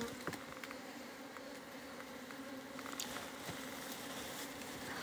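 A colony of local Chinese honeybees humming steadily at a low drone around an open wooden box hive, the colony stirred up by the hive being opened. A few faint clicks are scattered through it.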